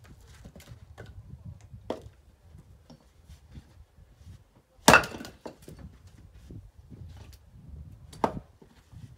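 Splitting axe striking firewood logs: a loud sharp crack about five seconds in and another strike near the end, with a lighter wooden knock around two seconds in.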